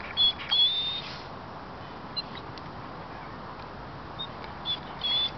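Hovawart dog whining in thin, high-pitched whimpers: a few short ones and one longer whine in the first second, then more short whines near the end. He is whining at the sight of a cat.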